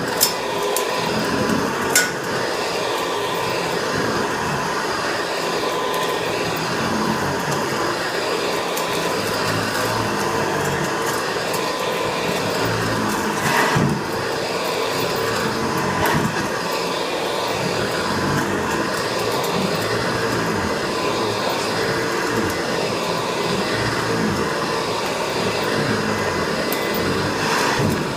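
Hoover Convertible Elite (Model U4063) upright vacuum cleaner running steadily while vacuuming a rug, a constant motor hum with a steady whine. Two short knocks come through, about two seconds in and near the middle.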